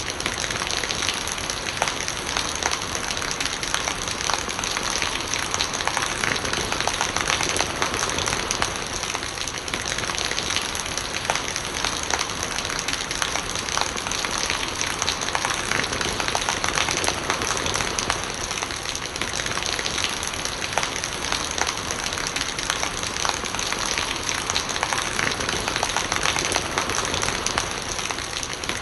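Steady rain with a dense patter of drops, and rainwater running and gurgling.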